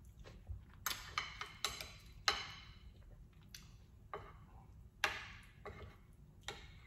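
Metal fork clinking and scraping against a dinner plate while cutting food. A string of sharp clinks with brief ringing, several close together in the first couple of seconds, then two more later.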